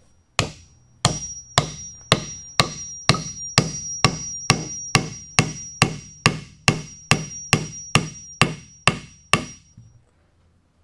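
Oak dowel being hammered into a drawbore mortise and tenon joint, about twenty sharp blows at roughly two a second, each with a short high ring. The blows stop near the end, once the dowel is down and the drawbore has pulled the tenon shoulder tight.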